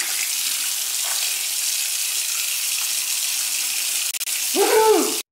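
Water running steadily from a Moen kitchen faucet spout into the sink as a steady hiss, the spout freshly resealed with a new O-ring and gasket. Near the end a short voice sounds, and then the sound cuts off suddenly.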